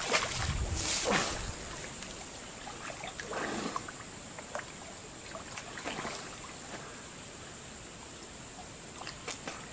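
Water splashing and sloshing as a person swims through a pond, loudest in the first second and a half, then a few softer splashes.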